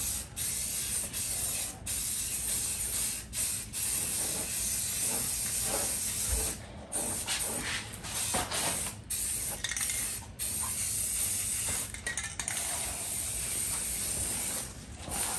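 Aerosol spray can of primer hissing, a steady spray broken by short pauses every second or two; the can is nearly empty and only sprays when held straight on.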